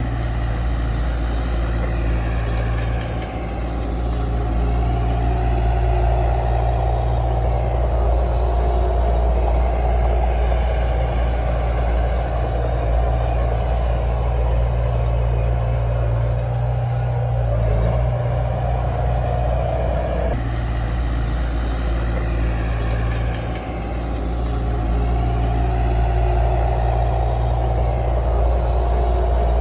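Heavy diesel engine of earthmoving machinery running steadily, its load rising and easing a little without stopping.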